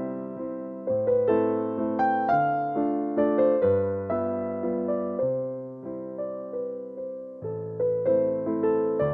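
Background piano music: chords and notes struck about once a second, each left to ring and die away.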